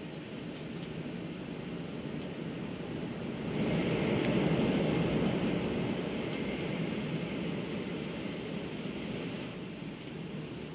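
Running noise of a 500 series Shinkansen at speed, heard inside the passenger cabin: a steady rumble and hiss that swells louder about a third of the way in, then eases off.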